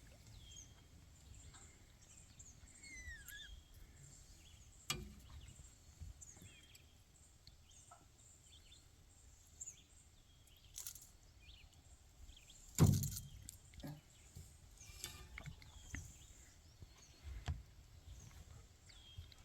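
Birds chirping and calling over quiet outdoor ambience, with a sharp knock about five seconds in and a louder thump about thirteen seconds in.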